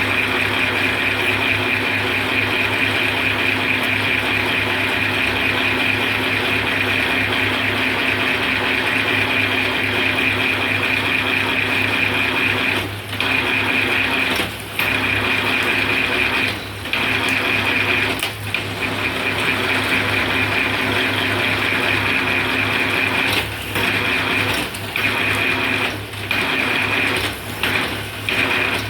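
Bamboo satay-skewer shaving machine running steadily with a high whine over a low hum, its sound dropping briefly several times in the second half.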